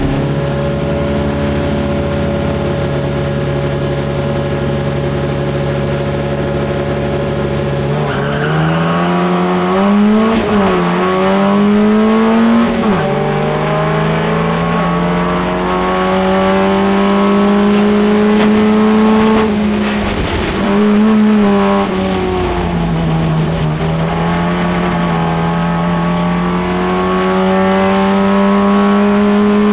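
A Holden Gemini race car's four-cylinder engine, heard from inside the cabin under racing load. It holds one pitch for the first several seconds, then the revs climb and drop back sharply again and again as the driver changes gear.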